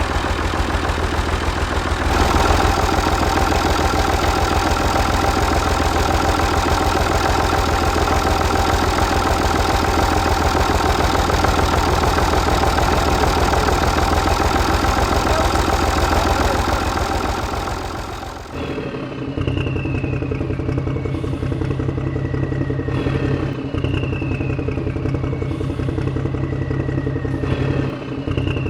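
A motor running with a fast, even clatter. About two-thirds of the way through it cuts to a steadier low engine hum, with a high whistling tone that falls in pitch three times.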